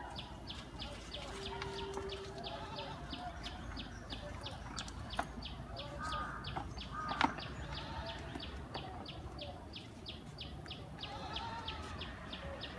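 Outdoor bird ambience: a high chirp repeated evenly about four times a second, with other birds calling at intervals. A brief steady low hum comes about two seconds in, and there are two sharp clicks midway.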